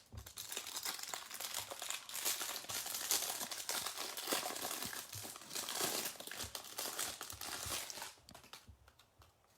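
Plastic wrapping on a stack of football trading cards crinkling and tearing as it is pulled open by hand, stopping near the end.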